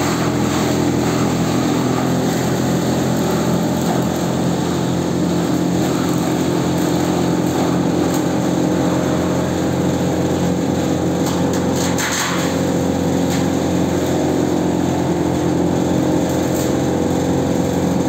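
Electric-motor-driven, belt-driven shredder for date palm fronds running steadily with a loud hum, chopping fronds as they are fed into it. There is a brief sharper noise about twelve seconds in.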